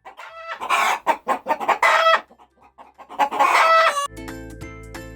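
Hen clucking and cackling: a few short clucks, then loud, drawn-out squawking calls in three groups. About four seconds in, background children's music starts.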